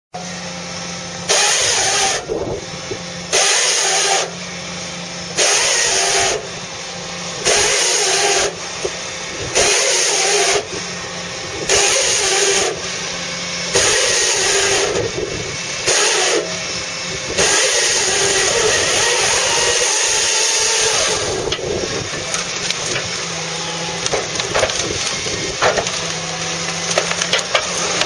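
Fiberpac 370B brash baler on a John Deere 1490D base machine working, its diesel engine running under a loud rushing noise that swells and falls back about every two seconds, then runs on without a break for a few seconds. Sharp cracks come through near the end.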